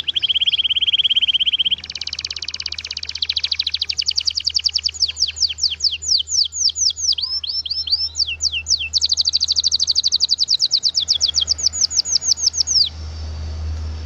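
Domestic canary singing a long song of rapid trills and rolls: a fast even trill, then runs of quickly repeated down-slurred notes at changing speeds, stopping about a second before the end. A low steady hum lies under it.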